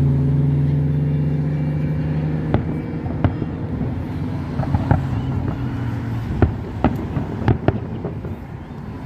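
Fireworks bursting in a series of sharp, irregular bangs, over the steady hum of a nearby vehicle engine that fades over the first few seconds.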